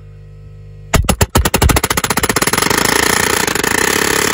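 Pneumatic palm nailer driving a 10d nail through a Simpson L90 steel angle into the wood: about a second in, a few separate blows, then very rapid, continuous hammering. A low steady hum comes before it.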